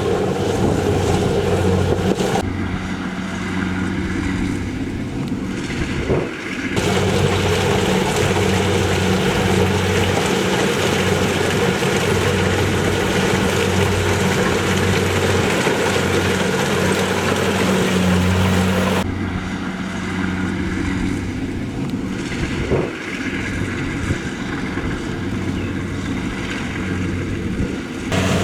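Rice combine harvester's engine and machinery running steadily, a constant low hum under a broad mechanical rush. The high rushing noise drops away abruptly about two seconds in and again near nineteen seconds, and comes back a few seconds later each time.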